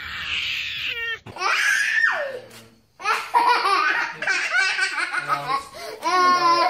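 A baby squealing with laughter, then, after a brief break, a toddler laughing hard in quick repeated bursts.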